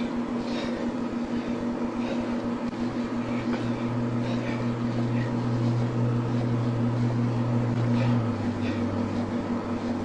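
Steady low mechanical hum with a fast even pulse underneath. A deeper tone swells in about three seconds in and drops away about eight seconds in.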